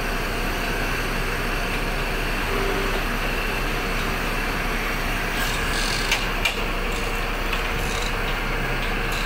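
Steady mechanical hum from a running machine, with a few light clicks a little past the middle.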